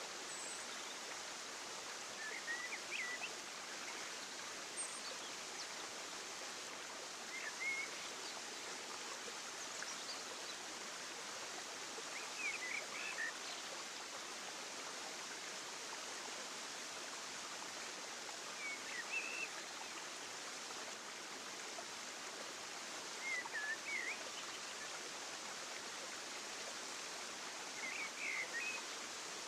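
Nature ambience: a steady rush of running water, with a small bird giving short, high chirps every four to six seconds.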